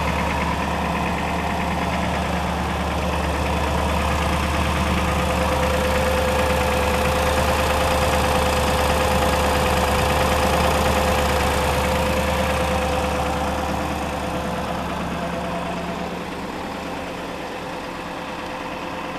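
Ford 7.3-litre Power Stroke turbo-diesel V8 in a 2003 E350 idling steadily with the engine still cold, soon after a cold start at about −16 °C with the block heater plugged in for under an hour. A steady whine runs through it, and the sound gets somewhat quieter about two-thirds of the way through.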